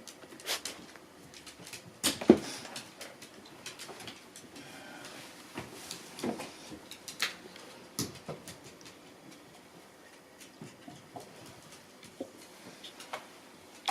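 Two house cats play-fighting: scattered thumps and scuffles of paws and bodies on the floor, the loudest thump about two seconds in.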